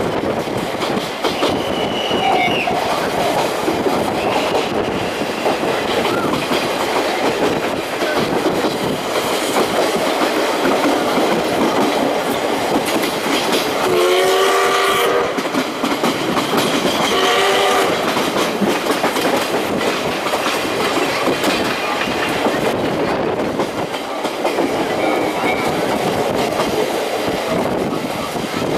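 Train of old-type passenger coaches hauled by steam locomotive C61 20, heard through an open coach window: steady running noise with the clatter of wheels over rail joints. About halfway through, the locomotive's steam whistle sounds two short blasts about three seconds apart.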